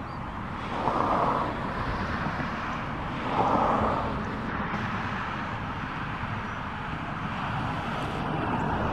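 A car driving along a road: steady engine and road noise, with brief louder swells of noise about one and three and a half seconds in.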